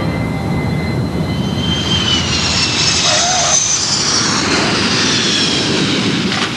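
Jet engines of a four-engine Boeing 747 airliner at takeoff power: a loud, steady rush with high whining tones over it.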